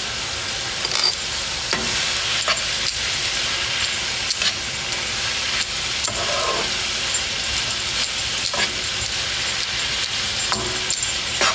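Meat and chopped onion, bell pepper and celery sizzling steadily in a frying pan as they are stirred. A utensil scrapes and clicks against the pan now and then.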